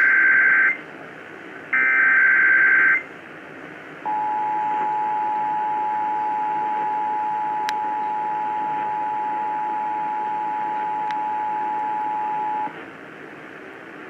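Emergency Alert System Required Monthly Test header played through an AM radio's speaker: two harsh, warbling SAME data bursts about a second each, then the EAS two-tone attention signal held steady for about eight and a half seconds before it cuts off. Steady AM static hiss runs underneath.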